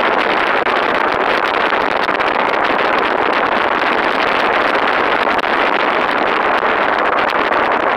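Steady rush of wind and road noise from a car driving along, with no sharp events.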